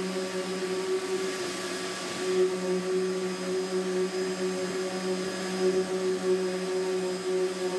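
Hand-held electric sander running steadily against the gel coat of a fibreglass sailboat hull, a constant motor hum with a rushing noise over it that swells and dips slightly as the pressure on the pad changes.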